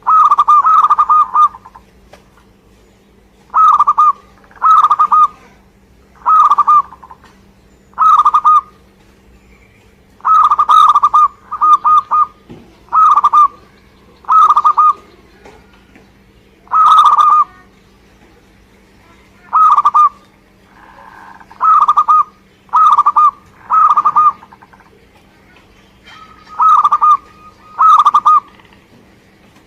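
Zebra dove (perkutut) cooing: loud, short phrases of a few quick notes, repeated every one to three seconds.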